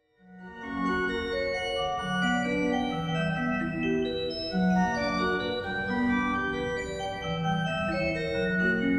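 Background music of held, sustained chords that change every second or so, fading in over the first second.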